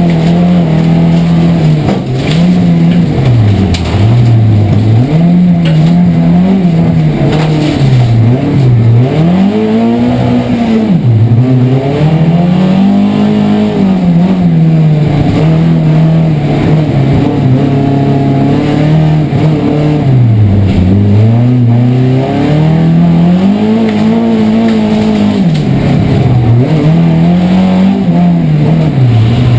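Saab rallycross car's engine on individual throttle bodies, heard from inside the cockpit, revving hard: its pitch climbs and drops back again every two to four seconds as the driver accelerates, lifts and changes gear.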